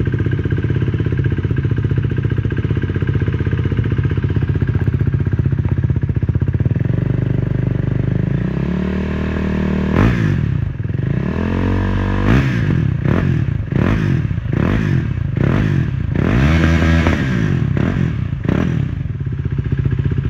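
KTM Duke 390's single-cylinder four-stroke engine through an Akrapovič exhaust, idling steadily after a fresh start. About eight seconds in it is revved up slowly, then given a series of quick throttle blips about once a second before dropping back to idle near the end.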